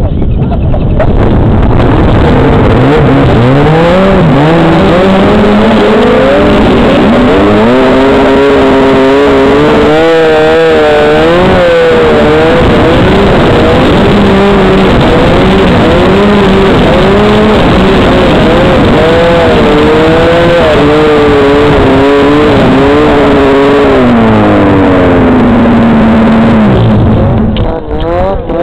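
Snowmobile engine running hard, its pitch rising and falling again and again with the throttle as the sled rides down a slope. Near the end it holds a steady note, then drops away and cuts off.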